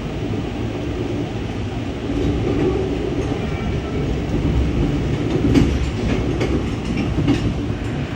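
A Siemens-built Amtrak passenger coach rolling along the track, heard from on board: a steady low rumble, with a quick run of wheel clicks over rail joints in the second half.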